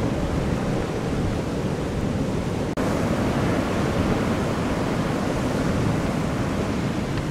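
Heavy hurricane-driven surf breaking against pier pilings and onto the beach: a steady, deep rush of crashing and churning waves.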